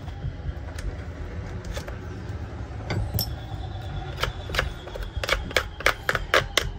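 Metal tool and parts clicking and scraping against a chainsaw's metal housing during disassembly. The taps are scattered at first and come thick and fast near the end, over a steady low rumble.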